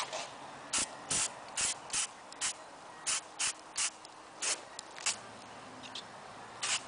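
Aerosol can of truck bed liner being shaken, its mixing ball rattling in short clacks, about a dozen of them at an uneven pace.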